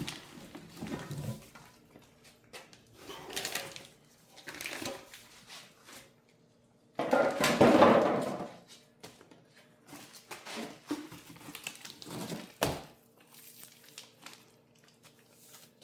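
Metal plow parts and hardware being handled and set down on a hard surface, with scattered clinks and knocks. A louder rustling, scraping stretch comes about seven seconds in, and a single sharp knock a little later.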